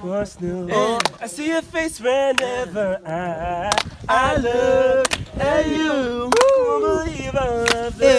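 Young men's voices singing and chanting together, pitches sliding and wavering, with many sharp clicks among them.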